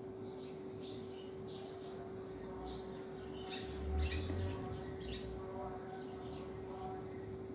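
Small birds chirping, short high calls scattered throughout, over a steady hum, with a brief low thump about four seconds in.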